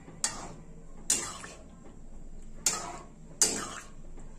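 A metal spoon clinking four times against the sides of a stainless-steel pan while stirring thick sambar, with short ringing tails after each knock.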